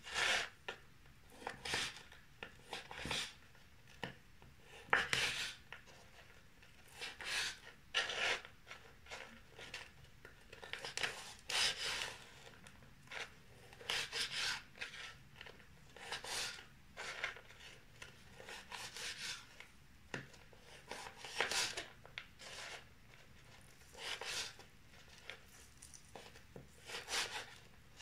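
A knife cutting through king prawns in a long run of short, hissing strokes, roughly one a second, with brief quiet gaps between them.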